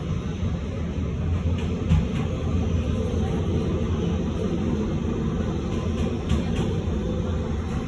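New York City Subway 7 train heard from inside the car while running: a steady low rumble of wheels and running gear on the track, with a few light clicks and rattles.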